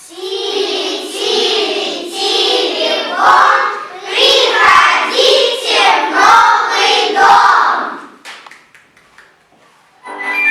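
Children's voices singing together for about eight seconds, then stopping, followed by a few faint clicks.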